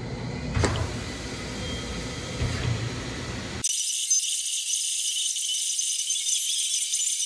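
A single sharp click about half a second in over a low hum, as a red rotary power switch on the CNC router is turned. About three and a half seconds in it changes abruptly to a CNC router engraving PVC with a fine engraving bit: a steady high hiss and rattle with no low end.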